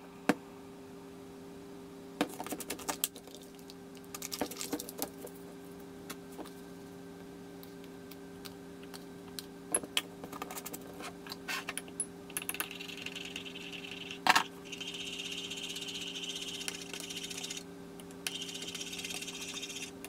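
Clinks, taps and clicks of a ceramic mug, a plastic hot-chocolate jar and lid, and a metal spoon being handled on a kitchen worktop while hot chocolate is made. A steady hiss comes and goes over the second half, under a low steady hum.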